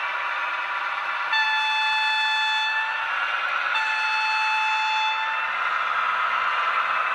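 Sound-equipped model class 280 (V 80) diesel locomotive pulling its train: two horn blasts of about a second and a half each, over its steady diesel running sound.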